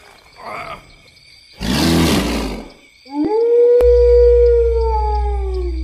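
Horror-intro sound effects: a short cry, then a loud rough roar-like burst, then a long wolf howl held on one pitch that falls away near the end. A deep bass hit comes in under the howl partway through.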